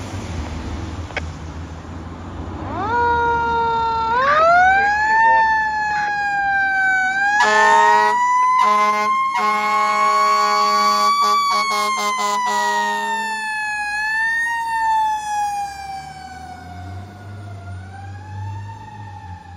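Fire engine siren starting up a few seconds in, then wailing slowly up and down and winding lower near the end. In the middle, the truck's horn sounds in several blasts with short breaks. Before the siren starts, the engine's low rumble is heard.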